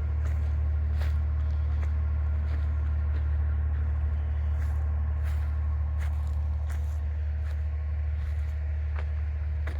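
Steady low rumble of a running vehicle, with scattered sharp clicks and ticks over it.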